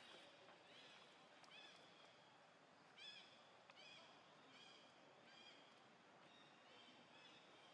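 Faint, repeated short high-pitched animal calls, each a brief arching chirp, coming about one or two a second over a low outdoor hiss.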